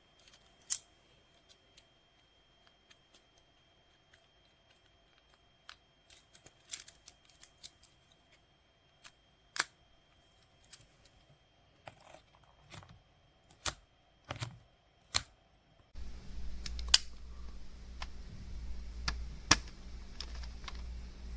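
Small hard objects being handled: scattered sharp clicks and snaps, some single and some in quick clusters. About two-thirds of the way through, a steady low hum comes in abruptly under the clicks.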